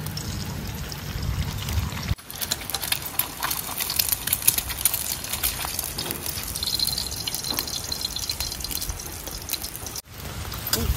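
Eggs frying in hot oil in a wok over a wood fire, a steady sizzle with many small spitting pops. The sizzle breaks off briefly about two seconds in and again near the end.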